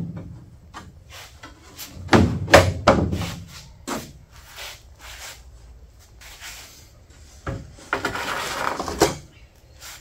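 Replica car door being handled and opened: a series of knocks and clunks, loudest about two to three seconds in, then a scraping rub near the end.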